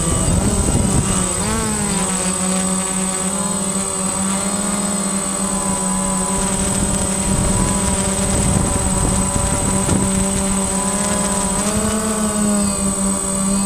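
Quadcopter drone's electric motors and propellers whining steadily, heard from the camera mounted beneath it, with a low rumble underneath and a thin high tone above. The pitch slides briefly a second or two in and again near the end as the motors change speed.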